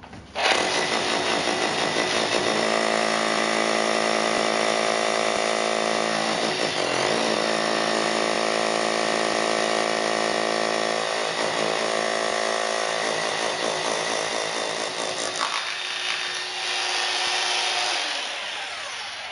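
Makita HR3210C SDS-Plus rotary hammer drilling into limestone: it starts about half a second in, runs steadily with a whining motor for about eighteen seconds, and stops near the end.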